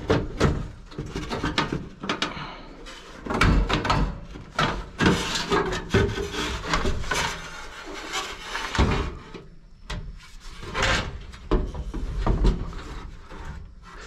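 Irregular metal knocks, clunks and scraping as a fan coil unit's fan motor assembly is worked loose and pulled out of its sheet-metal cabinet.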